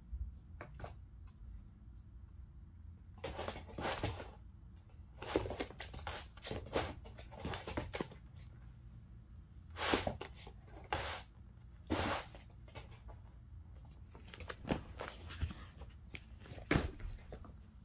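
Irregular, short scratchy scuffs as a kitten's paws and claws scrabble and pounce on a vinyl gym mat, clustered in bursts a fraction of a second long, over a steady low hum.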